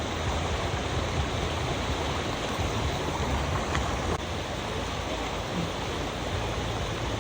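Stream water running steadily, an even rushing noise.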